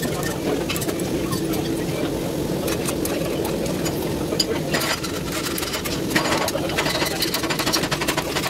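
A steady mechanical hum with scattered light clicks and knocks.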